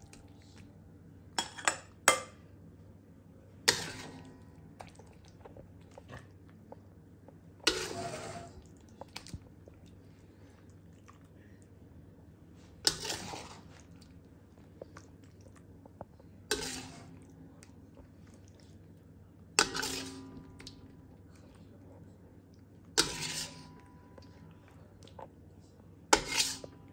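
Metal spatula scraping and clanking against a wok and a glass bowl as stir-fried beef is scooped out: a sharp clank or scrape every three or four seconds, some with a brief ring, over a low steady hum.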